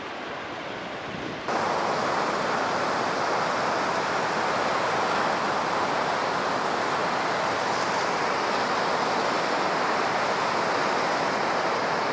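Breaking ocean surf, a steady even wash of noise that jumps suddenly louder about a second and a half in and then holds level.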